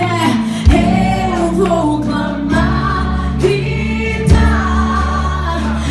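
Live worship music: voices singing a gospel song over a band with sustained bass notes, and two sharp drum hits, one near the start and one about two-thirds of the way through.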